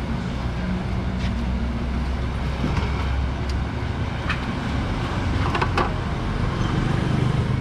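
Steady low rumble of a commercial wok stove's gas burner, with a few sharp metallic clanks as a steel box of chopped scallions is handled against the stove top.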